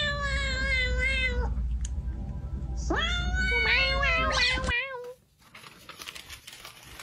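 Kitten meowing: two long drawn-out meows, the first sliding down in pitch, the second rising and then held with a wavering end. A low hum runs beneath and cuts off suddenly just after the second meow.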